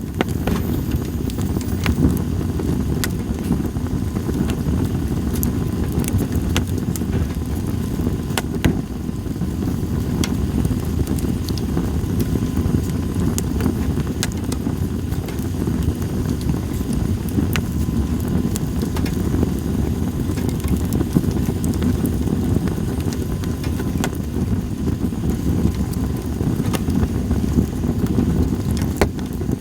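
Campfire of split sawtooth oak (kunugi) logs crackling, with scattered sharp pops every few seconds over a steady low rumble.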